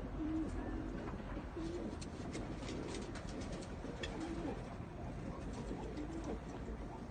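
Domestic Hanani pigeons cooing, several low coos overlapping and repeating, with scattered light clicks in the middle stretch.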